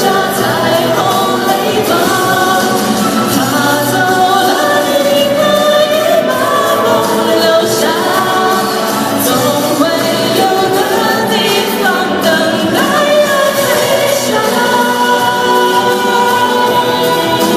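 Pop song with singing over instrumental accompaniment.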